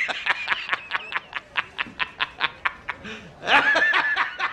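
Small hammer tapping quickly and evenly on the steel edge of a 2011 Ford F-350 bed-side panel, about five blows a second, straightening the bent metal.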